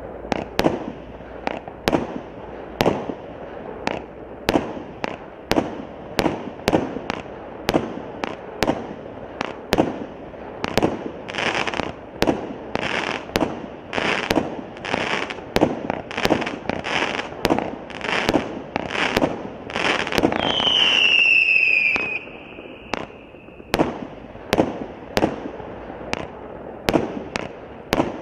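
Absolute Fireworks Backyard Battle, a 100-shot cake of 15 mm tubes, firing: a steady run of sharp shots and bursts about two a second. About twenty seconds in, a louder stretch brings a falling tone lasting about two seconds.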